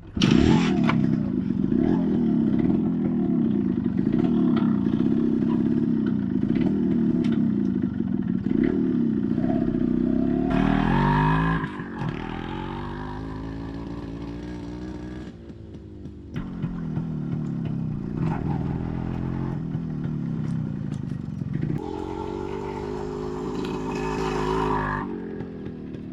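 Yamaha RX100's single-cylinder two-stroke engine running, its revs rising and falling repeatedly. It is louder in the first half and quieter after, with rises in revs around the middle and near the end.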